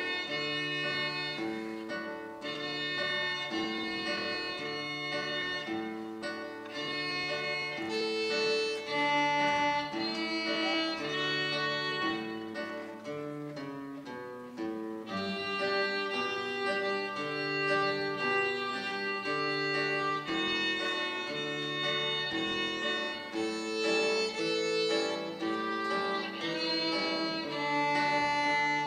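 Violin and classical guitar playing a duet: the violin carries the melody in sustained bowed notes over plucked guitar accompaniment with regular bass notes about once a second.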